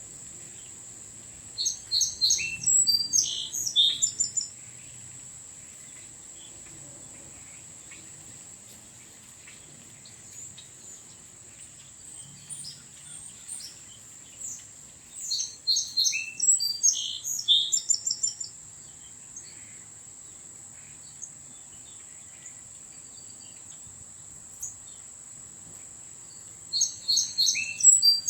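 A songbird sings the same quick, varied phrase of high chirping notes three times, each phrase about three seconds long and spaced roughly twelve seconds apart. A steady high-pitched insect trill runs underneath.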